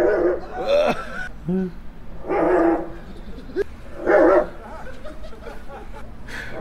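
Four loud, short barks, a second or two apart.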